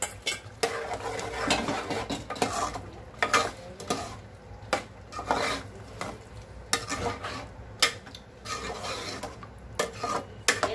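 A metal ladle stirring boiled mung and moth beans into a sizzling fried masala in a metal pot, scraping the pot in repeated, irregular strokes.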